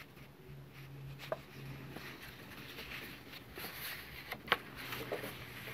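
Faint handling of paper index cards being slid and set down by hand, with a few light taps, the loudest about four and a half seconds in, over a faint low hum.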